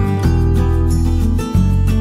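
Background music: a guitar-led tune, its chords changing about once a second.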